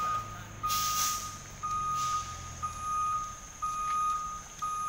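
Truck reversing alarm beeping steadily about once a second, each beep nearly a second long, over a low engine rumble that fades out about three seconds in. A short hiss comes about a second in.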